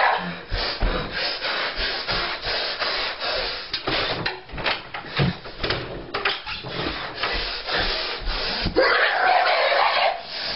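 Scuffling, rubbing and knocking of a person thrashing around a bedroom and throwing bedding about, with many sharp knocks.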